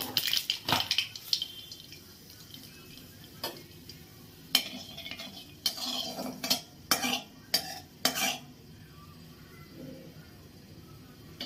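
A spatula scraping and clinking against a coated wok while nigella seeds are tempered in hot mustard oil. There is a cluster of scrapes at the start and a run of about eight short knocks in the middle.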